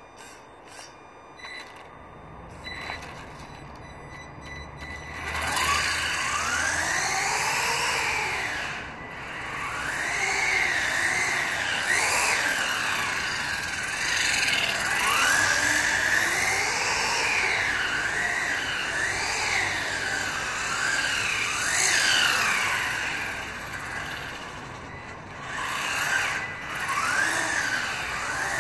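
Electric motor and gears of a WLtoys A979 RC buggy whining loudly, the pitch rising and falling again and again as it accelerates and slows while being driven. It starts about five seconds in.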